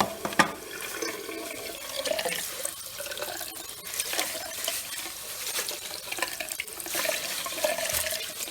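Tap water running steadily over canister filter media in a sink, with scattered light clicks of the media being handled, rinsing out the dust.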